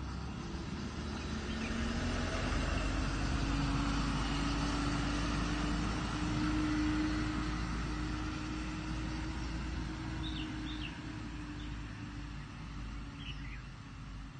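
A distant engine drone, one steady hum that swells over several seconds and then slowly fades. A few short bird chirps come in near the end.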